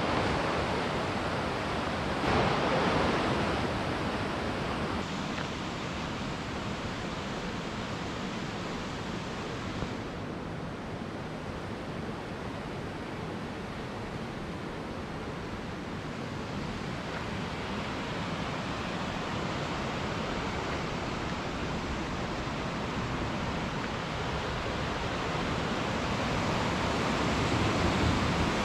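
Baspa river's fast, cold snowmelt water rushing over rocks, a steady noise that grows louder near the end.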